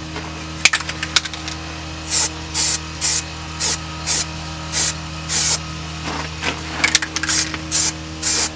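Aerosol spray can of zinc-phosphate primer being sprayed in short hissing bursts, about two a second, after a few clicks near the start. A steady low hum runs underneath.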